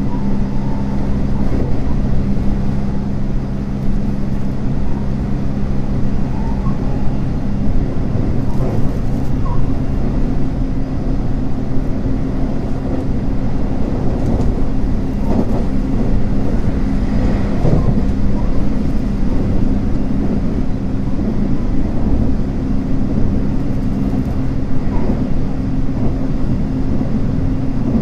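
Running noise of a JR West 225-series 100 subseries electric train heard on board: a steady low rumble of wheels on rail with a constant hum from the traction motors, its pitch shifting partway through.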